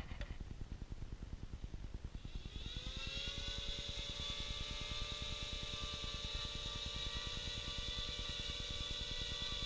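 Hubsan X4 H107L micro quadcopter's four small coreless motors and propellers spinning up about two seconds in, rising in pitch, then holding a steady whine at part throttle. The propellers have been balanced by sanding the heavier blade. There is a single click at the very start.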